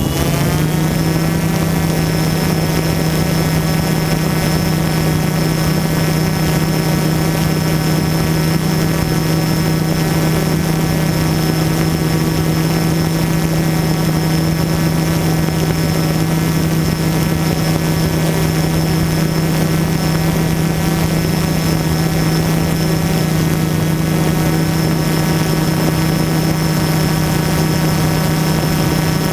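DJI Phantom quadcopter's motors and propellers running steadily in a hover, a constant low buzz with a thin high whine above it, heard up close from the drone's own on-board camera.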